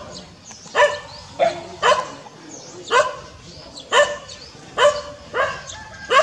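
A dog barking repeatedly, about eight short barks roughly a second apart.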